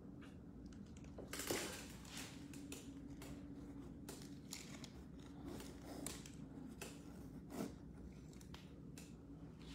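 Faint handling noises of an action figure being laid into the foam insert of its cardboard box: soft rustles and light taps and clicks, the loudest rustle about a second and a half in, over a faint steady hum.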